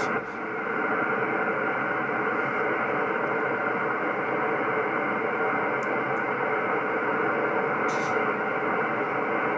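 HF transceiver's receiver audio on 10-metre upper sideband: steady band static with faint steady tones running through it. A brief click about eight seconds in.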